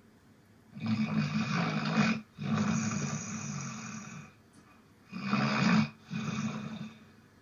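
A person snoring in sleep: two slow breaths, each snored in two long parts with a brief catch between, and quiet pauses between the breaths.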